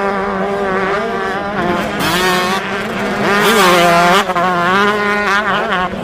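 Motocross dirt bike engines revving hard, the pitch climbing and dropping again and again as the throttle is worked, with more than one engine heard at once.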